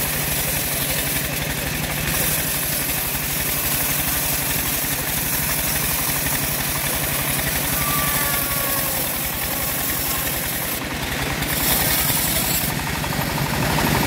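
Homemade band-saw mill running steadily as its blade saws lengthwise through a large acacia log, with an even engine-like pulse underneath. The hiss of the cut grows briefly louder about eleven seconds in and again near the end.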